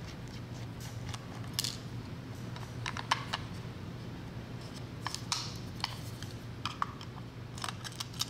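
Irregular small clicks and taps of hand tools and plastic and metal parts being handled while an Amazon Echo Spot is taken apart, over a steady low hum. A cluster of clicks comes about three seconds in, and more follow near the end.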